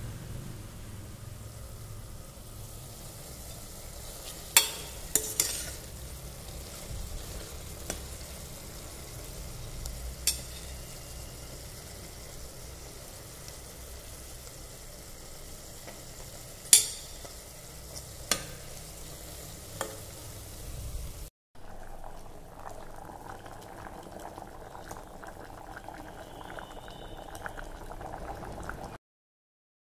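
Tomato, onion and mint mixture sizzling in a steel pressure cooker as a steel spoon stirs it, with several sharp clinks of the spoon against the pot. After a cut about two-thirds of the way through, the mixture is bubbling at the boil.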